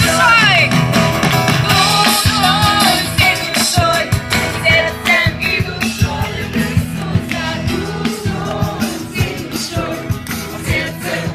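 Music: a song with a singing voice over a band with drums.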